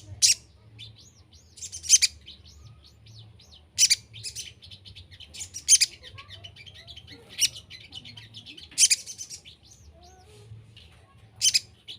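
Little spiderhunter (sogon, sogok ontong) calling: a sharp, loud burst of high notes about every two seconds, with softer quick chirps in between.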